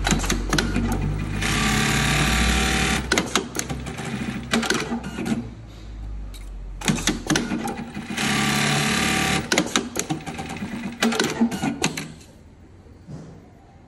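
Automatic label sewing machine working through its cycle: two stitching runs of about two seconds each, separated by rapid clattering clicks and knocks from its mechanism. It stops about twelve seconds in.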